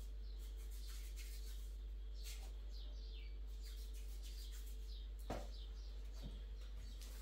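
Small birds chirping: many short, falling chirps that repeat throughout, over a steady low hum. A single knock comes about five seconds in.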